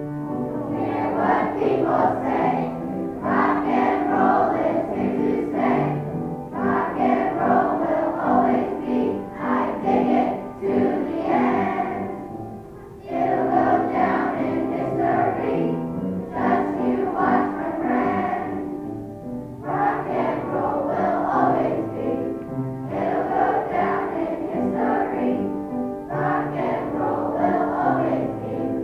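A children's choir singing a song together, with a short break between phrases about twelve seconds in.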